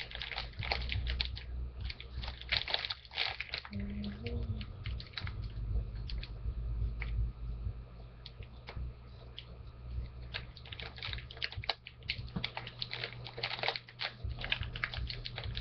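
A small packet of pocket tissues being handled and opened, with irregular rustling and crackling of its wrapping, over a steady low hum.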